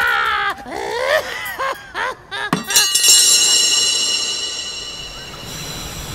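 A woman's loud, high-pitched angry shriek, wavering in pitch, then a few sharp hits about two and a half seconds in. The hits are followed by a bright metallic ringing that slowly fades away.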